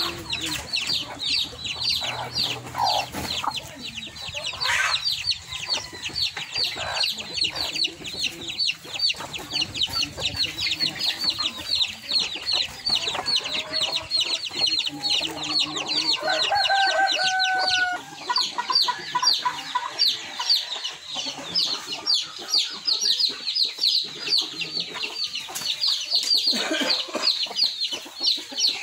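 Backyard chickens calling: a steady stream of quick, high, falling peeps runs throughout, with clucking underneath. A little past halfway comes a longer held call, a rooster crowing.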